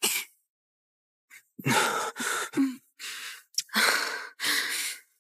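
A person's breathy sighs and gasps, one after another, in a string of short uneven breaths.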